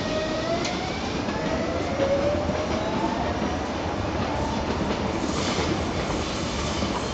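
Electric commuter train, a Renfe Civia multiple unit, pulling out and accelerating: its traction motors give a whine that rises steadily in pitch over the first few seconds, over the rumble of the wheels on the rails.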